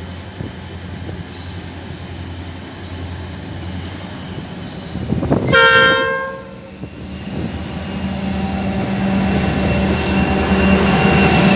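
A train horn sounds one short chord about halfway through, over the rumble of a train on the rails. The rumble and a low engine drone grow louder toward the end.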